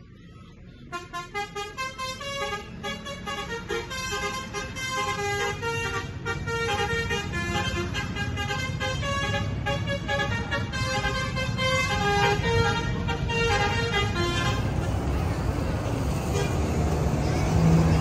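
Bus 'telolet' horn playing a fast multi-note melody of short tones for over ten seconds. Near the end it gives way to the louder, steady sound of a bus engine running as the bus moves past.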